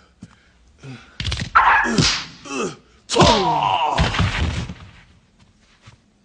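Fight sounds: sudden blows with a man's cries that fall in pitch, a shorter one about a second in and a longer one about three seconds in, then a few faint knocks near the end.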